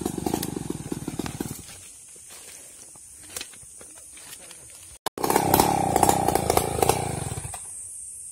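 New West 707 chainsaw running loud, falling much quieter after about a second and a half. After a brief break it runs loud again for about two and a half seconds, then falls quiet once more.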